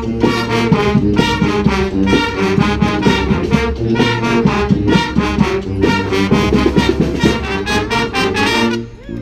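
Brass street band of trombones and trumpets playing over a steady drum beat, breaking off just before the end.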